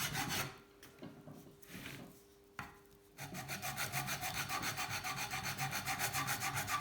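Hand file rasping over the cut end of a bicycle seat post held in a vise, in quick back-and-forth strokes. The filing stops about half a second in, with one light click during the pause, and starts again at about three seconds.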